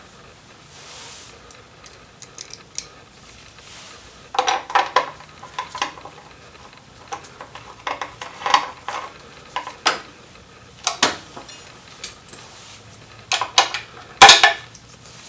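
Gloved hands fitting a motorcycle speed sensor into its sprocket-cover housing: scattered small clicks, taps and scrapes of metal and plastic parts, coming in clusters a few seconds apart, the loudest near the end.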